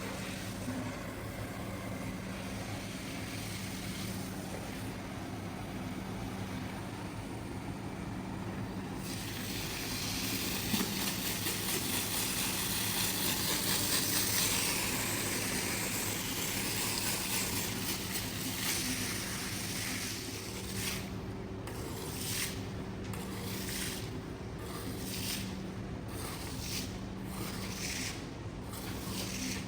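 A steady machine hum. A hiss swells through the middle, and in the last third comes a run of rhythmic rubbing or scraping strokes, about one a second.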